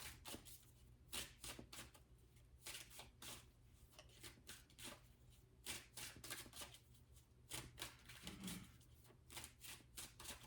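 Tarot cards being shuffled and handled: faint, irregular soft slaps and rustles of card stock, several a second.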